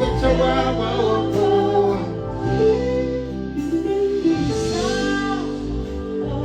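Live band music with a voice singing a melody over held chords.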